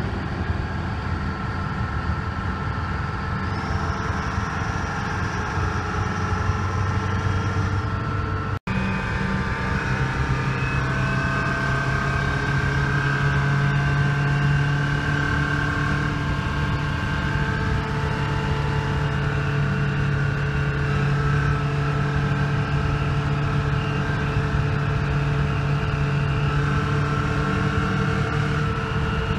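Detroit Diesel engine of an FTF semi truck pulling on the road, heard from inside the cab as a steady drone with road and wind noise. There is a brief break about nine seconds in, after which the engine note sits a little higher.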